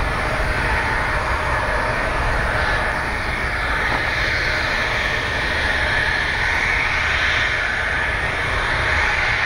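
Twin-engine jet airliner's turbofan engines idling on the ground: a steady rushing hum over a low rumble, with a thin, constant high whine.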